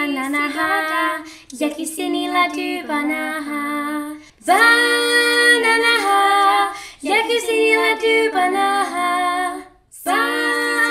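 A girl singing short a cappella phrases into a Sonuus Loopa looping microphone, with brief pauses between the phrases.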